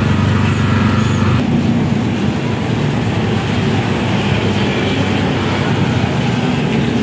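Steady engine hum and street noise. About a second and a half in it changes abruptly to a rougher, noisier rumble.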